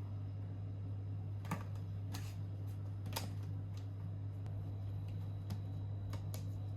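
A steady low electrical hum with a few light, irregular clicks and taps over it.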